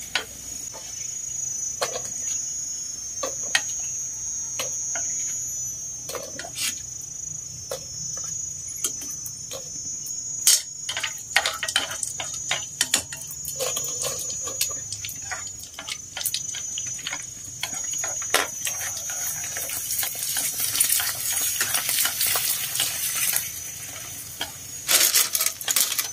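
Prawn crackers deep-frying in a wok of hot oil, sizzling, with chopsticks clicking and knocking against the wok as the crackers are turned and lifted out. The sizzle grows louder past the middle as a fresh batch goes into the oil.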